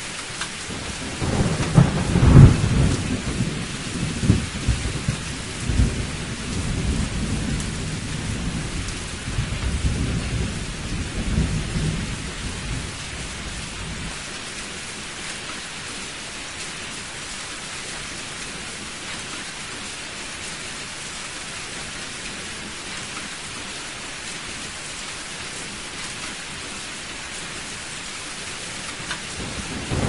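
Heavy rain falling steadily, with a long roll of thunder that starts about a second in, is loudest near the start and rumbles on in waves for about twelve seconds before dying away, leaving only the rain. Another thunder rumble begins at the very end.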